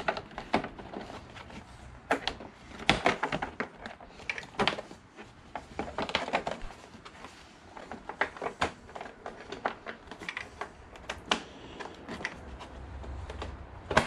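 Irregular clicks, taps and light knocks of plastic motorcycle trim against the screen and fairing of a Suzuki SV1000S as its tabs are worked into place by hand, with a few louder snaps among them.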